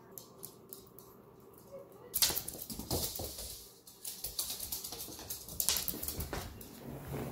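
A small dog's claws ticking on a hard wood-look floor as it walks and trots, with a quick patter of light taps. From about two seconds in, louder shuffling and rubbing noise joins in as the phone follows the dog.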